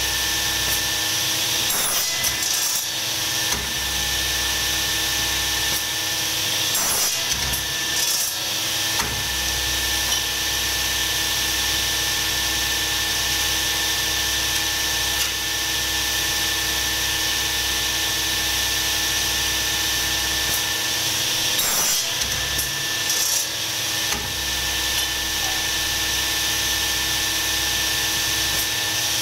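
Electric workshop machine running steadily with a humming motor and a high, hissing cutting noise, broken by a few sharp knocks.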